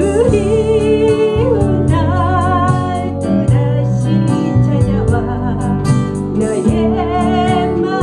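A woman singing a slow Korean ballad with vibrato on her held notes, accompanying herself on a strummed acoustic guitar.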